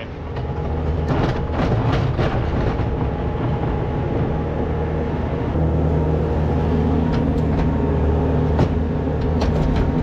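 Farm machine engine running steadily, a little louder from about halfway through, with scattered clanks and knocks.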